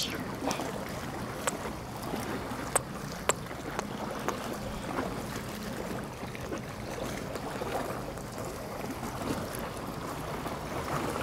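Sea waves washing on the shore, a steady surf noise with some wind on the microphone, and a few sharp clicks in the first few seconds.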